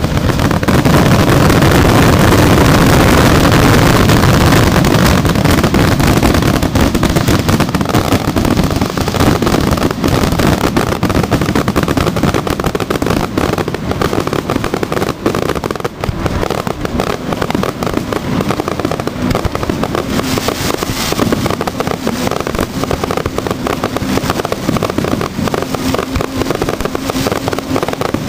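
Fireworks display: a dense, unbroken barrage of shells bursting and crackling. It is loudest and deepest in the first several seconds, then continues as a rapid run of bangs and crackle.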